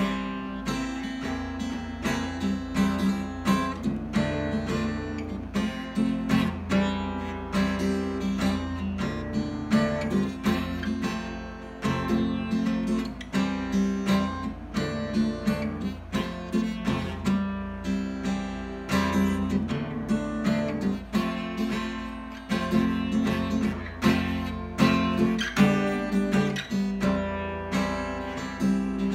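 Solo acoustic guitar playing chords, the strings plucked and strummed several notes a second over a moving bass line.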